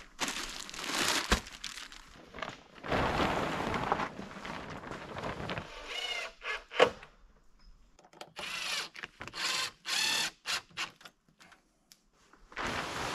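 Plastic tarp crinkling and rustling as it is unfolded and pulled over a wooden pole frame, in several bursts with short pauses between, and a sharp knock or two.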